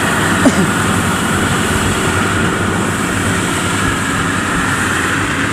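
FMWorld WD102PRO rice combine harvester running steadily while cutting and threshing rice at speed, its engine and threshing drum making a loud, even mechanical noise. A short sharp sound stands out about half a second in.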